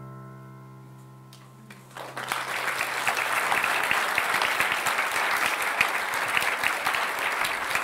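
The last chord of the song's accompaniment dies away, then a hall audience breaks into applause about two seconds in and keeps clapping.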